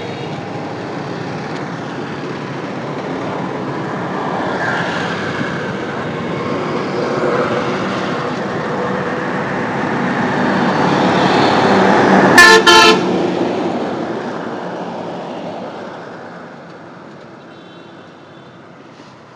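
Road traffic passing, swelling as a vehicle comes close and then fading away. At the loudest point, about twelve seconds in, a horn sounds two short, very loud toots.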